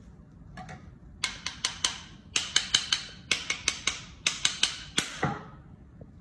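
A butcher's knife blade clinking in quick runs of four or five sharp metallic clicks, each with a short ring.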